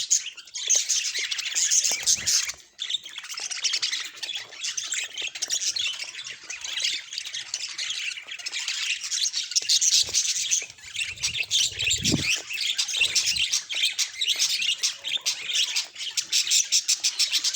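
Budgerigars chattering: a dense, continuous run of rapid chirps, warbles and squawks.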